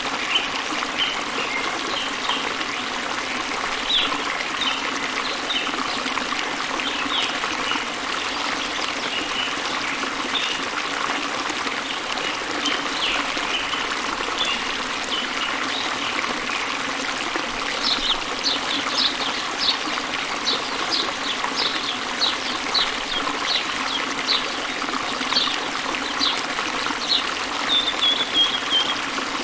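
Water of a small waterfall trickling and splashing steadily, with songbirds chirping over it, the chirps coming more often in the second half and ending in a short falling trill near the end.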